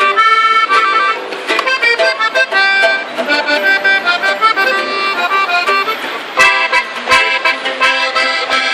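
Accordion playing a quick instrumental break over band backing between sung verses. About six and a half seconds in, the drums and bass come in harder.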